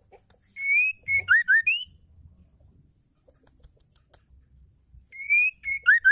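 White-rumped shama giving two bouts of clear, whistled notes, short rising and falling slurs, about a second in and again near the end. The uploader presents it as a female shama's call, used to stir male shamas into song.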